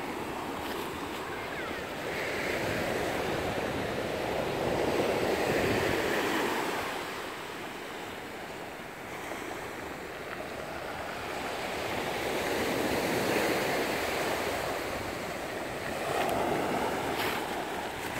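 Sea waves breaking and washing up over a dark pebble beach. The surf swells and fades in slow surges every several seconds.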